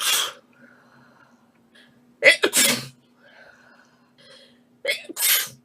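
Three sneezes about two and a half seconds apart, each a short catch of breath followed by a louder, sharp burst.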